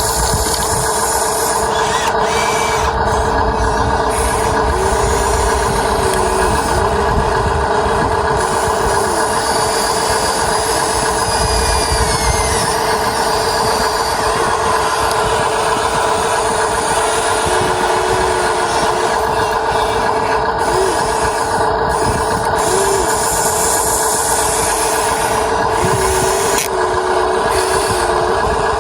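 Huina 1593 RC excavator's electric motors and gears whirring steadily, with small shifts in pitch now and then.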